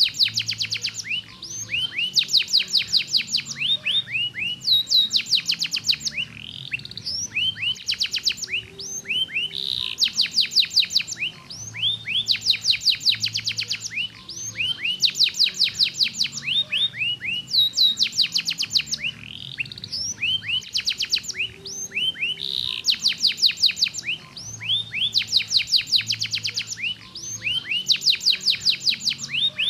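Domestic canary singing a long, unbroken song of fast trills: rows of rapidly repeated high notes, many sweeping downward, switching to a new trill every second or so.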